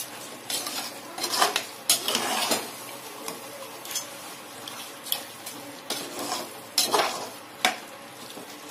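Steel ladle scraping and knocking against the metal pot in irregular strokes while stirring rice and chicken masala together.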